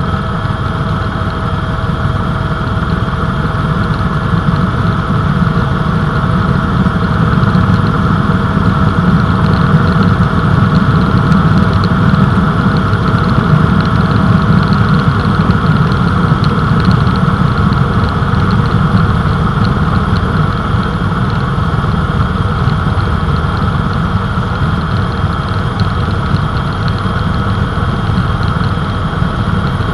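Helicopter in flight heard from aboard: a loud, steady drone of engine and rotors with a thin steady whine above it.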